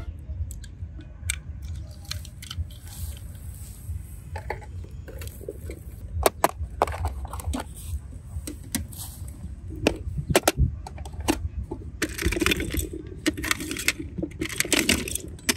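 Water beads (Orbeez) clicking and rattling against a clear plastic box as hands handle and pick through them: a scatter of small sharp taps, busier near the end, over a steady low rumble.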